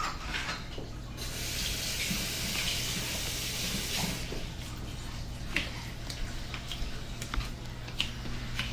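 Sink tap running for about three seconds while something is rinsed under it, then shut off, followed by a few light clicks and knocks.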